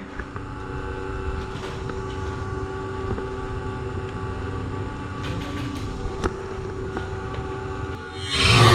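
A steady low rumble with a constant hum, broken by a few faint sharp clicks, and a loud rising whoosh near the end.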